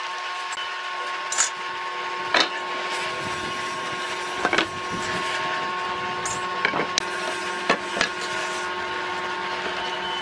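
A steady machine hum in a workshop, with a scatter of sharp wooden knocks and clacks, about seven of them at uneven intervals, as pieces of wood are handled.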